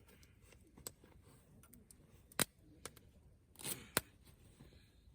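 Campfire crackling: a few scattered sharp pops over a quiet background, the loudest about two and a half seconds in, with a short rustle and another pop near four seconds.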